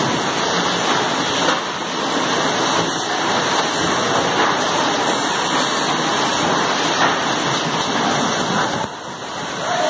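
Steady rushing machinery din from an automatic oil filling line and its conveyor, dipping briefly near the end.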